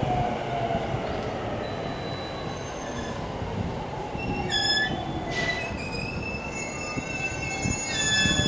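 Chuo-Sobu Line local electric train braking to a stop at a station platform. Its motor whine falls in pitch over the first second, with wheel and brake squeal and a steady rumble, and a few short high tones sound about halfway and again near the end.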